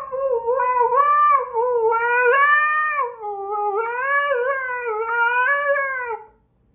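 Husky howling: a long run of wavering notes whose pitch rises and falls from one syllable to the next, stopping about six seconds in.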